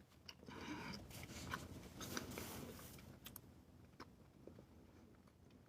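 Faint mouth noises of someone chewing bubblegum: soft, scattered clicks, most of them in the first three seconds.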